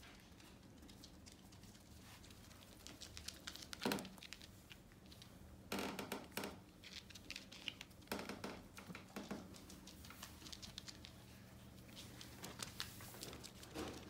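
Papillon puppies and a border collie scuffling in play on a rug: faint rustling, scratching and clicking in short spells, the sharpest about four seconds in.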